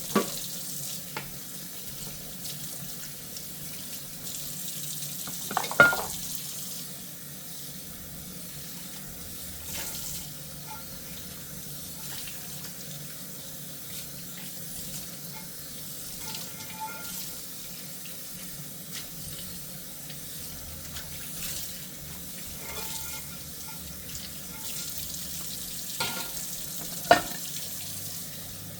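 Kitchen tap running steadily into a sink during hand dishwashing, with a few short clinks of dishware knocking together, the loudest about six seconds in and near the end.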